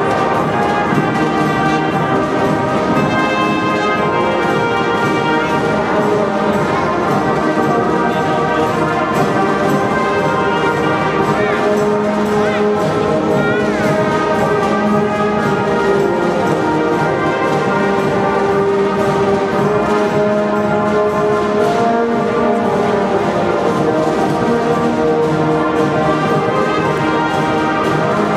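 Youth marching band playing, brass instruments holding chords and melody lines over drums.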